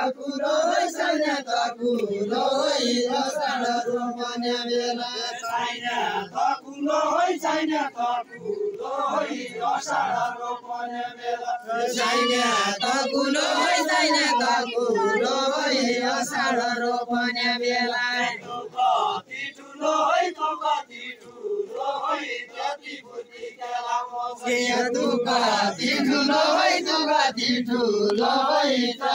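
A group of voices singing a Deuda folk song together in a chant-like, repeating melody, phrase after phrase with short breaks between.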